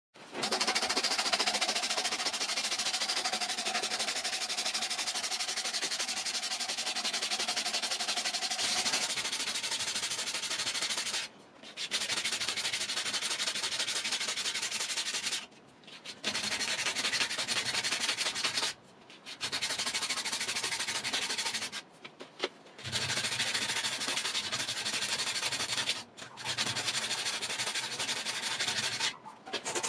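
A strip of sandpaper pulled back and forth around a wooden knife handle clamped in a vise: a steady rasping sanding sound of abrasive on wood, broken by several brief pauses.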